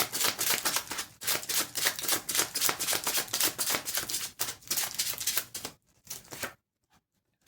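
A deck of tarot cards being shuffled by hand: a quick, continuous patter of card edges slapping together. It stops about six seconds in.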